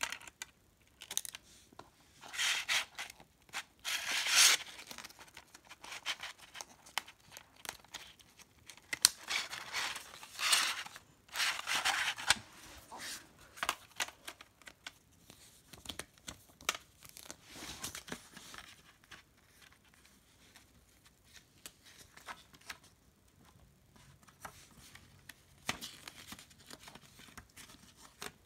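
Handling a plastic CD jewel case and its paper booklet: scattered clicks and rattles of the case and disc, with bursts of paper rustling as the booklet is pulled out and opened, louder in the first half.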